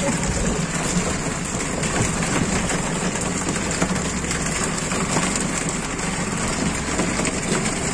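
Fishing boat's engine running steadily, with rain falling.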